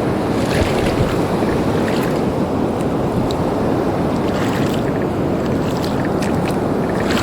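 Wind buffeting the microphone over the steady rush of shallow surf and current-driven water.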